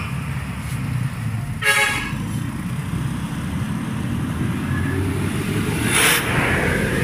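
Ordinary bus running along the road, a steady low engine and road rumble heard from inside the cabin. A short horn toot comes about a second and a half in, and a brief hiss comes near the end.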